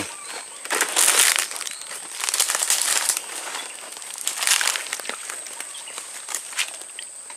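Dry leaves and twigs rustling and crackling as branches are pushed aside and handled, in several bursts with small snaps.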